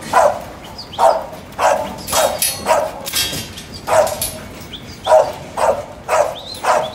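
A working sheepdog barking repeatedly at a pen of sheep to move them, about a dozen short, loud barks at uneven intervals, with the echo of a shed around them.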